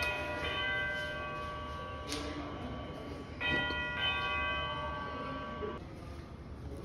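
Electronic doorbell chime ringing out a multi-note tune twice: once at the start and again about three and a half seconds in, fading away near six seconds. There is a sharp click about two seconds in.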